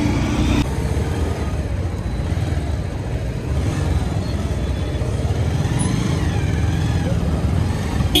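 Bajaj Pulsar 150 single-cylinder motorcycle running along the road, heard from on the bike, with a steady rumble of engine and wind noise.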